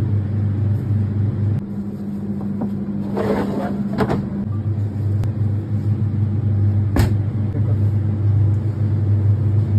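Steady low hum of commercial kitchen machinery, with a brief rustling scrape about three seconds in and one sharp knock about seven seconds in.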